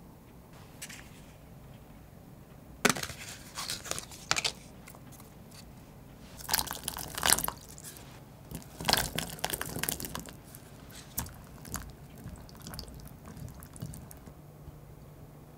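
Fresh blueberries being washed by hand in a glass bowl of water: splashing and wet swishing, with the berries knocking together, in several bursts from about three seconds in until near the end.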